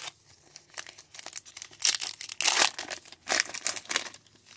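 Plastic wrapper of a baseball trading-card pack crinkling and tearing as it is ripped open by hand, in irregular bursts that are loudest about two seconds in and again near the end.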